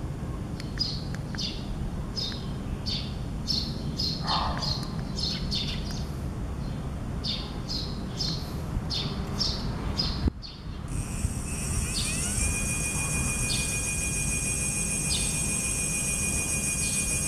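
Small bird chirping repeatedly over a low hum. About ten seconds in the sound dips briefly, then the brushless gearless 36 V 250 W hub motor spins up under its controller: its electronic whine rises in pitch and settles into a steady high tone.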